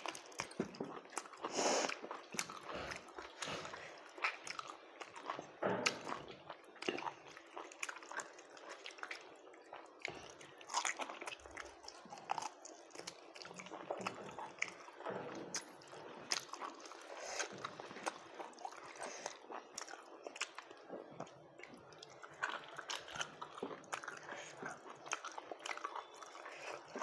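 A person eating rice and chewing, with many small irregular mouth clicks and smacks.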